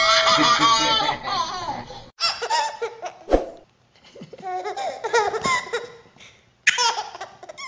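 Baby laughing in several bouts of giggles with short breaks between them, and a sharp click a little after three seconds in.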